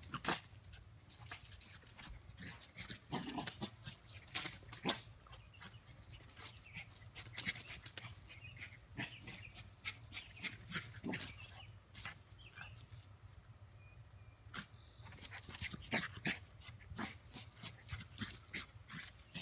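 Small terrier-type dog pouncing on and chewing dry fallen leaves: irregular sharp crackles and rustles of the leaves, with the dog's own sounds among them.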